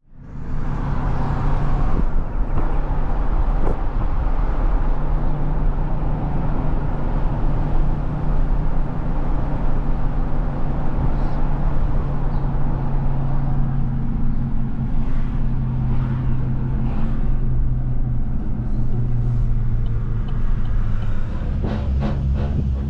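A motor vehicle running steadily: a constant low engine drone with road noise and a few faint clicks.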